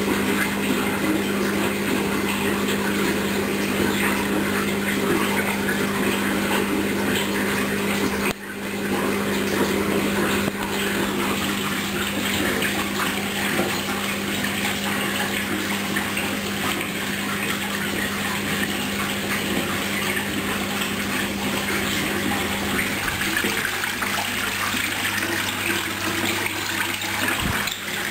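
Hoover washing machine during a wool-cycle rinse: water rushing steadily through the machine over a constant low hum, with a brief dip about eight seconds in.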